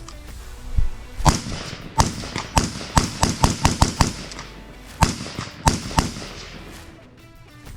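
Gunfire: about a dozen sharp shots at irregular spacing, with a quick string of shots around three to four seconds in, some with a short echoing tail.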